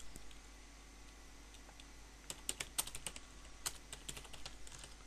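Typing on a computer keyboard: a quick run of keystrokes that starts a little before halfway through and lasts about two and a half seconds.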